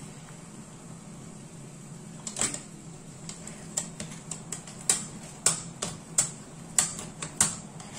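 Metal clacks of an old nokedli (spätzle) maker as dough is worked across its grater plate on a steel pot. The clacks start about two seconds in and settle into a steady beat of roughly one or two a second, over a steady low hum.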